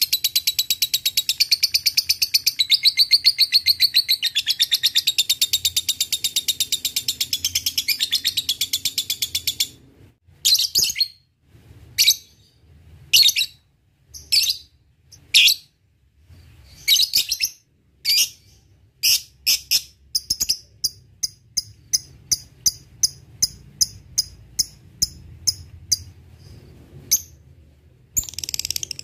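Lovebird's long, fast chattering trill (ngekek) breaks off about ten seconds in. Scattered single high chirps follow, then a run of short ticking notes (ngetik) at about two a second, and near the end the rapid chatter starts up again.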